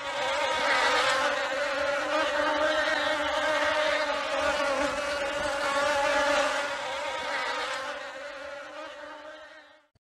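Bee buzzing: a steady, unbroken buzz that starts abruptly, fades over the last two seconds or so, and stops.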